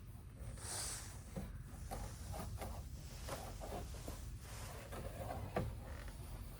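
Quiet rubbing as an alcohol wipe is worked over window glass and sill, with a short hiss about a second in, light knocks, and one sharp click about five and a half seconds in.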